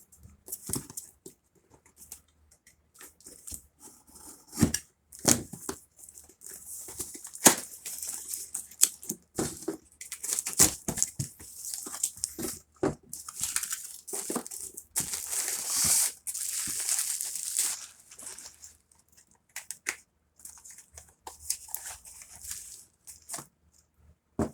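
Packaging being torn open and crinkled while a timer is unboxed, with sharp clicks and knocks of handling in between. The longest stretch of rustling comes about two-thirds of the way through.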